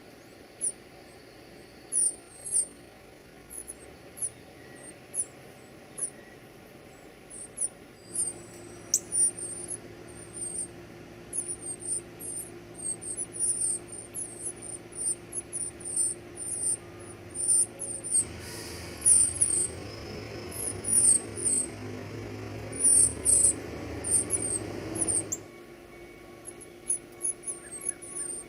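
Baby birds cheeping: short, very high-pitched begging chirps, sparse at first and coming thick and fast from about a third of the way in. A low steady hum starts partway through and stops a few seconds before the end, with a rushing noise under it over its last stretch.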